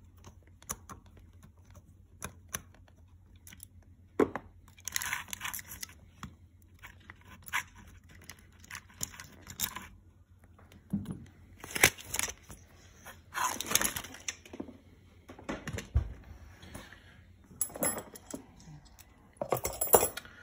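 Hand-work noises on a magnetic drill's wiring: scattered small clicks, then several rustling, scraping bursts of wires and crimp connectors being handled, and a dull thud about 16 seconds in.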